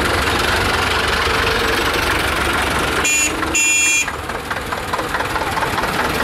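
Tractor engines running steadily as a column of tractors drives past. About three seconds in, two short high-pitched horn beeps sound one after the other.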